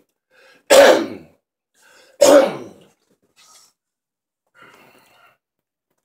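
A person's breath, two sharp, loud puffs about a second and a half apart, each trailing off quickly, with a few faint breaths after them.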